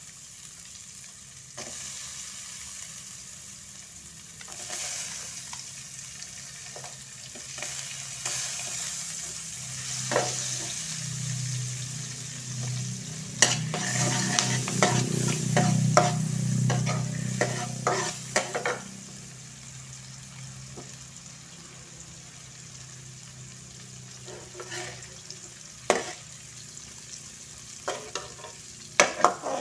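Sliced shallots sizzling as they fry in hot oil and margarine in a metal wok, stirred with a metal spatula that scrapes and clicks against the pan. The stirring is busiest and loudest about halfway through, then eases back to a steady sizzle with a few more scrapes near the end.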